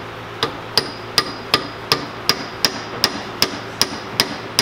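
Brass hammer tapping a steel pin punch to drive a retaining pin into an MG overdrive planet gear carrier, in a steady rhythm of about two and a half strikes a second, each with a short metallic ring. The pin is bending instead of going into place.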